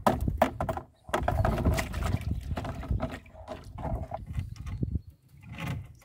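Wire-mesh fish trap rattling and knocking as ides are shaken out of it into a plastic bucket, with the fish thudding and flapping.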